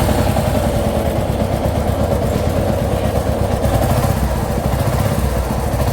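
Royal Enfield Meteor 350's J-series single-cylinder engine idling steadily with an abnormal mechanical noise from inside the engine, which the mechanic suspects is the main bearings, a common problem on J-series engines.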